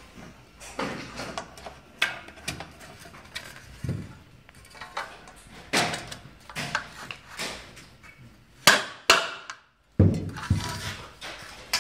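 Irregular knocks and clacks of aluminium frame profiles and plastic corner pieces being handled and fitted together on a workbench, with a few louder thuds near the end.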